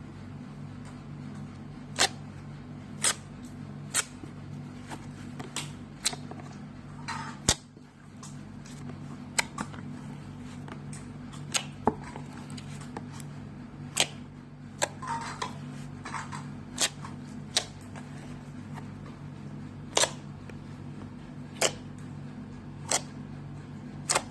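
Gold slime being squeezed and poked by hand, giving sharp popping clicks every second or two with a few soft squelches, over a steady low hum.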